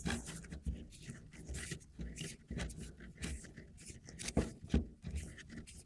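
Irregular small clicks, knocks and scrapes of plastic and metal parts being handled as a parking brake cable is unscrewed and pulled out of an electronic parking brake unit, with a couple of sharper knocks past the middle.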